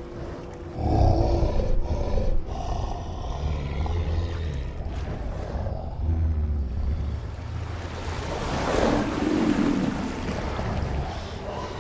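Deep, rumbling growls of a giant film gorilla creature over churning water, with a louder growl about three quarters of the way through.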